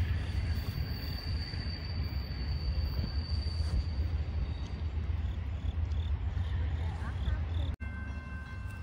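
Steady low outdoor rumble with a thin, high insect trill above it that fades out about halfway. Near the end the sound cuts off sharply and comes back with a few faint steady tones.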